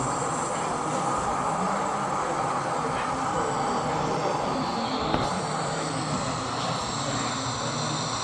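Model train running along the layout's track: a steady rolling and running noise.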